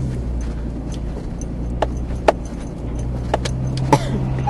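A vehicle's engine running low and steady while it drives across rough field ground, with a few sharp rattles and knocks from the bumps.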